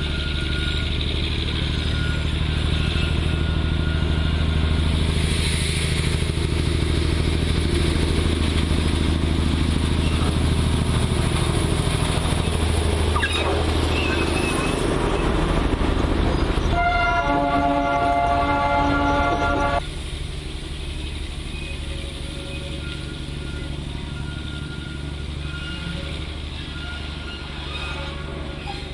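Darjeeling Himalayan Railway toy train's diesel locomotive running past with a steady low engine drone and the rattle of its wheels on the narrow-gauge rails. Its horn sounds a chord of several tones about seventeen seconds in for some three seconds, and then the sound drops suddenly to a quieter, steady level.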